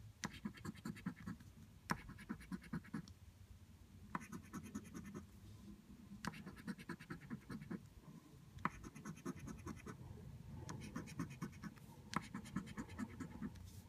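A scratch-off lottery ticket being scratched: faint bursts of quick rasping strokes, each opening with a sharp tap, a new burst every two seconds or so.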